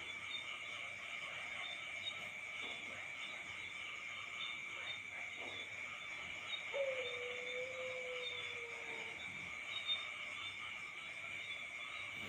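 Night chorus of crickets and other insects, a steady shrill trill. About six and a half seconds in, a single low whistle-like tone starts sharply and slides slowly down over about two seconds.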